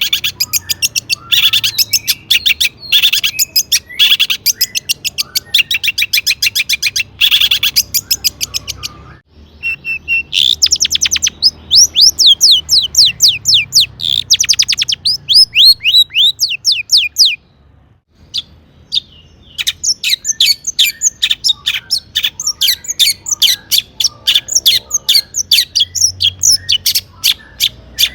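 Long-tailed shrike (cendet) singing hard in long runs of rapid, sharp, repeated notes and chatter, with brief pauses about nine seconds in and again near eighteen seconds.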